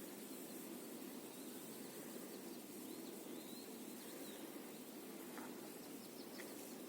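Faint outdoor ambience: a steady low background hiss with a few faint, short bird chirps in the middle.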